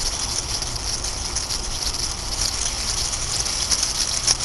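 Red onions sizzling and bubbling in a covered pan as they caramelize on a parabolic solar cooker: a steady crackling hiss.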